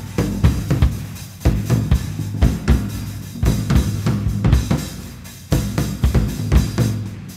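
Live drum-kit playing: irregular tom and bass-drum hits with cymbal wash, the low drums ringing. The hits thin out briefly about five seconds in, then come back strongly.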